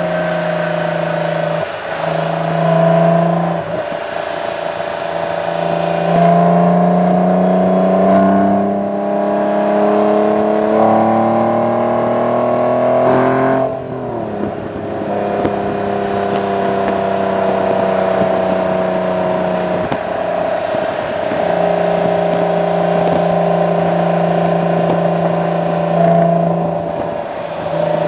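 1998 Acura NSX-T's 3.2-litre V6 through a GT lightweight aftermarket exhaust, heard close to the exhaust outlet while driving. The pitch climbs steadily under acceleration from about six seconds in, drops sharply with an upshift just before the middle, then holds mostly steady at cruise with a couple of brief dips.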